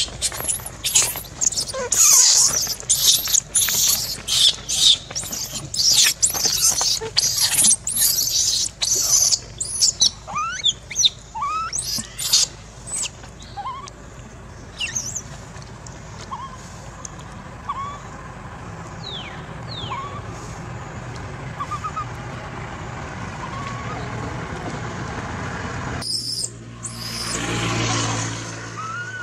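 Animal chirps and squeaks: a dense run of sharp, high chirps for the first ten seconds or so, then scattered short rising squeaks. Near the end a lower, steadier sound with a brief pitched call comes in.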